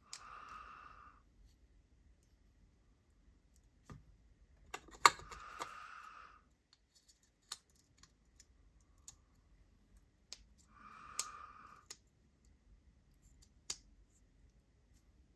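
Small sharp clicks and taps of a folding knife's parts and tools being handled while its crossbar lock and omega spring are being fitted, irregular, the loudest about five seconds in. Three soft hiss-like noises about a second long come near the start, around five seconds in and around eleven seconds in.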